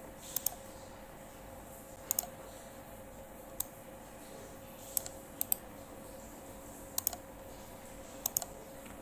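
Clicking at a computer: short sharp clicks, mostly in quick pairs, about every one to two seconds, over a faint steady hum.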